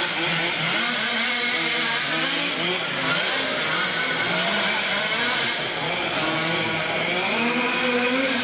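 Small nitro glow engines of radio-controlled trucks revving up and down, several at once and overlapping, without a break.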